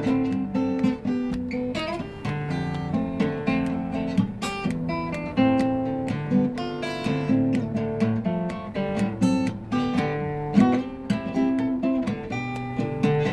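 Cutaway acoustic guitar played solo: chords and picked melody notes ringing together in a steady flow.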